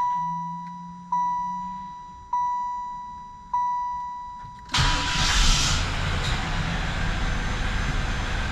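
Chevrolet Impala's warning chime dinging four times, about every 1.2 seconds, with a brief low hum in the first two seconds. Then the engine cranks and catches just before five seconds in and settles into a steady idle, its first start after a fresh oil change.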